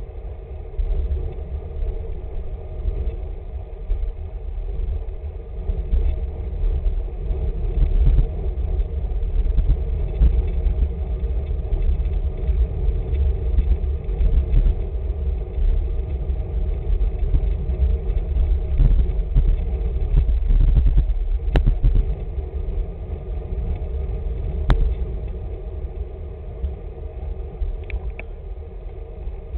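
Wind buffeting a moving bicycle camera's microphone, with road rumble from the bike tyres on tarmac, a steady low roar. Two sharp clicks about three seconds apart come past the middle.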